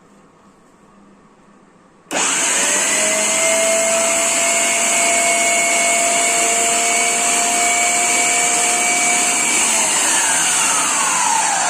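Preethi Zodiac mixer grinder's motor switching on about two seconds in, driving the slicer attachment through halved onions: a loud, steady whirring whine that rises quickly in pitch and holds, then drops in pitch near the end as the motor slows.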